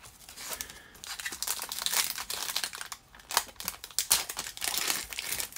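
Foil wrapper of a 2019 Mosaic basketball card pack being torn open and crinkled by hand: a dense, irregular run of crackles and rustles.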